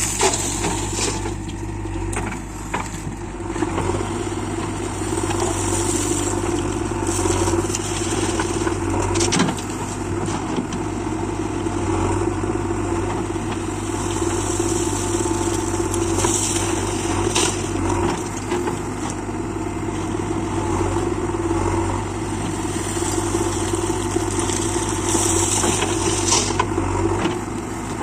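Diesel engine of a JCB 3DX backhoe loader running steadily while it digs and loads mud, with brief bursts of scraping and falling earth every several seconds.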